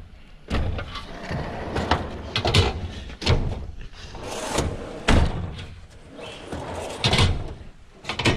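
Rummaging through a steel rolling tool chest: drawers sliding and banging shut and hand tools clattering, a string of sharp knocks and clanks.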